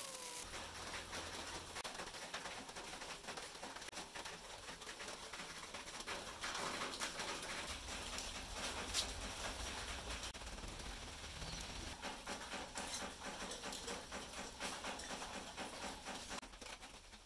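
Metal clicks, clinks and scrapes of hand tools and engine parts as a 150 cc motorcycle engine is stripped: a cylinder-head bolt is worked loose and the cylinder is lifted off over the pushrods. One louder knock comes about nine seconds in.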